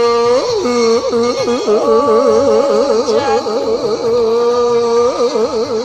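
Man singing into a microphone: long held notes broken by fast, wide warbling runs in the middle and again near the end.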